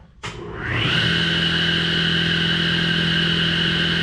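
An electric power tool motor switching on and spinning up to speed in under a second, then running at a steady whine.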